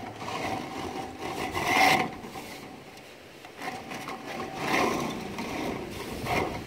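Flexible corrugated aluminum vent liner scraping and crinkling as it is fed by hand down a clay chimney flue tile. The sound comes in two swells of rubbing, with a brief lull between them.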